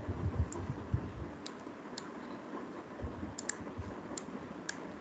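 Scattered sharp clicks of a computer mouse, about a dozen, some in quick pairs, with a few dull low knocks in the first second.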